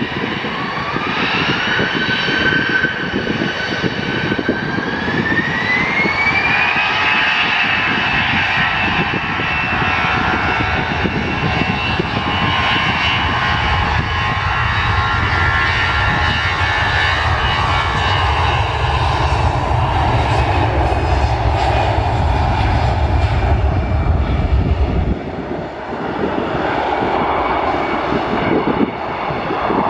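The two CFM56-5B turbofans of an Airbus A320-214 spool up to takeoff power: a rising whine that climbs, levels off, then climbs again over the first several seconds. The engines then run steadily at full power with a deep rumble as the airliner rolls down the runway. The deep rumble drops off suddenly near the end.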